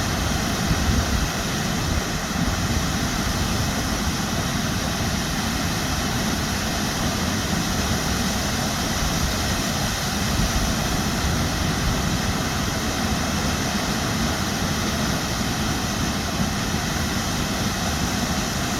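Stjórnarfoss waterfall rushing: a loud, steady, unbroken noise of falling water.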